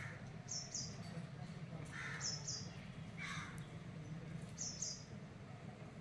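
Crows cawing, a short call every second or two, along with a high two-note chirp that repeats about every two seconds, over a steady low hum.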